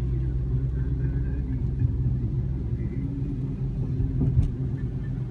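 Steady low rumble of a car's engine and tyres on a wet road, heard from inside the cabin, with one short click about four seconds in.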